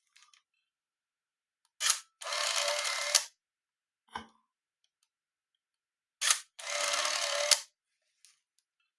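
Minolta AF-Sv compact 35mm film camera firing twice. Each time a sharp shutter click is followed by about a second of motorized film-advance whirring that ends in a click, as the camera winds on to the next frame.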